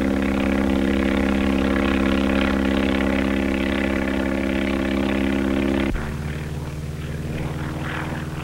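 Biplane propeller engine droning steadily. About six seconds in, the sound cuts abruptly to a quieter, lower engine drone.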